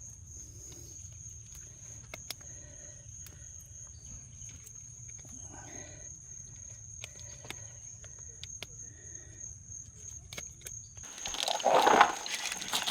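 Insects droning in one steady high tone, with a low rumble and scattered faint clicks. About eleven seconds in, the rumble stops and a loud, noisy burst lasts about a second.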